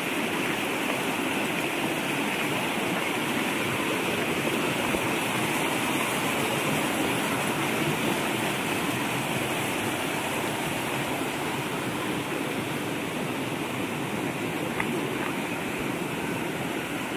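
Small rocky stream rushing over stones, a steady rush of flowing water.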